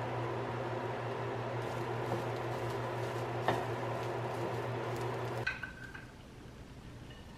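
Vegetables, rice and lentils stir-frying in a nonstick pan: a steady sizzle over a low hum, with a few sharp ticks of the wooden spatula against the pan. About five and a half seconds in the sizzle stops abruptly and a few ringing clinks follow as the food is tipped into a ceramic bowl.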